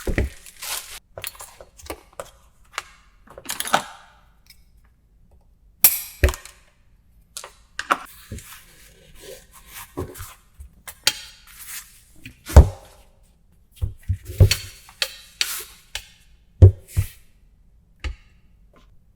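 Handling noise at a workbench: irregular knocks and thunks with short rustles in between, and two loud sharp strikes about two-thirds of the way through.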